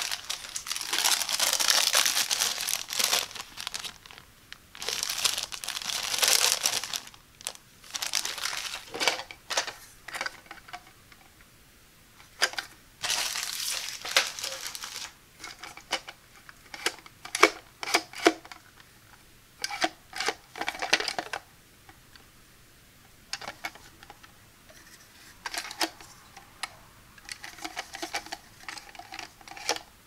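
Clear plastic parts bag crinkling in long stretches as it is handled and opened. After about halfway this gives way to shorter clicks and taps of a hard plastic toilet fill valve being turned over in the hands.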